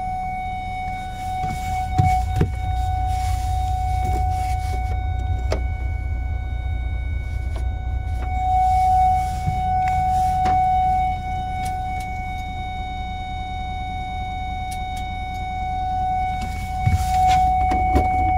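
A Mercedes Travego coach's warning buzzer sounds one steady, unbroken tone over a low rumble, with a few sharp clicks.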